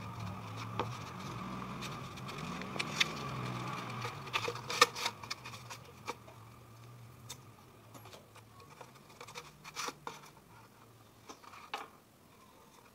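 Paper sheet being handled and wrapped around a PVC pipe: crinkling and rustling with scattered light taps and clicks, the sharpest a little before the middle. A steady low hum runs under the first half and fades out.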